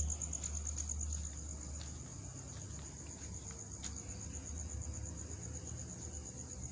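An insect trilling steadily outdoors: a high-pitched, rapidly pulsed trill. A low rumble underneath is strongest over the first couple of seconds, then eases.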